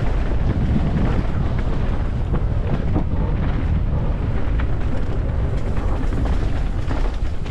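Wind rushing over the microphone mixed with the rattling and knocks of a downhill mountain bike riding fast over rough trail.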